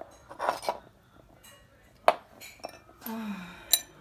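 Shards of a broken glazed ceramic cachepot clinking and knocking against each other and the wooden floor as they are picked up and put down: a few sharp knocks, the loudest about two seconds in, and a ringing clink near the end.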